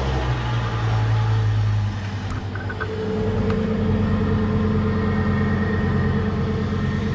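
2009 GMC Canyon's engine running at idle just after starting, the new fuel pump supplying it. The low hum changes about two seconds in and it settles into a steady idle.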